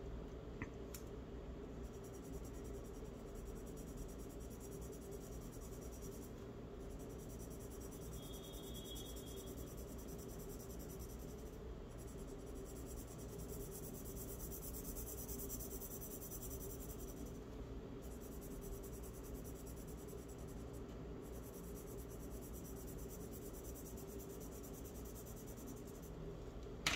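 Faint scratching of a charcoal pencil drawing and shading on paper, in long stretches that stop and start every few seconds, over a steady low hum.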